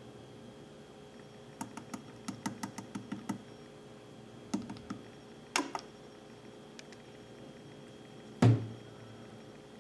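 A quick run of about ten light clicks and taps, a few more clicks a second or two later, then one loud thump near the end.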